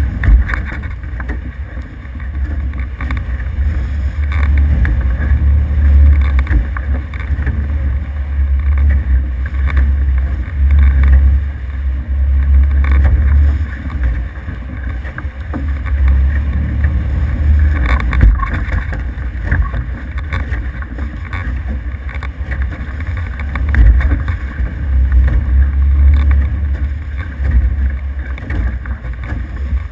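Wind buffeting the microphone in surging gusts that swell and fall every few seconds, over a steady rush of water along the hulls of an F18 catamaran under sail.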